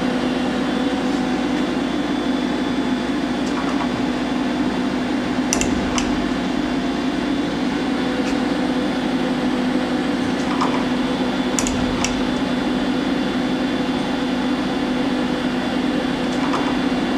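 Steady hum of a Romi M-27 CNC lathe standing under power, with its 8-position tool turret indexing twice: each index is a pair of short clicks with a low thud, about six seconds in and again about twelve seconds in.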